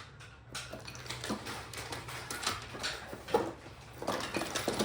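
Small hard toy train cars clicking and clattering as they are handled and set onto the track, a string of light knocks with a sharper one about three and a half seconds in.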